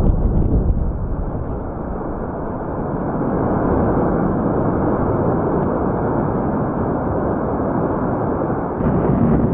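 A steady, muffled rumbling roar with nothing above the low and middle range, its character shifting slightly about a second in and again near the end.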